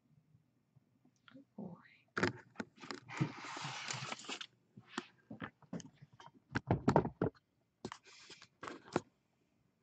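Handling noise from the desk camera being bumped and moved: a quick run of knocks and clicks with two spells of rustling and scraping, the heaviest thuds about seven seconds in.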